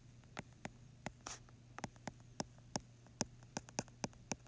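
Stylus tapping and ticking against an iPad's glass screen while writing out math by hand: an irregular string of sharp clicks, about four a second, over a faint steady low hum.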